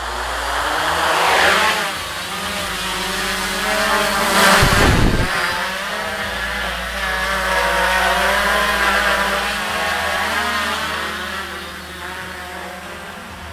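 Quadcopter drone flying close by, its propellers making a loud buzzing whine that wavers up and down in pitch as it manoeuvres. There is a brief loud whoosh about four and a half seconds in, and the buzz fades near the end as the drone moves away.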